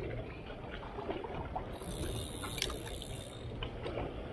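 Small sea waves lapping and trickling among breakwater rocks, with a few faint clicks.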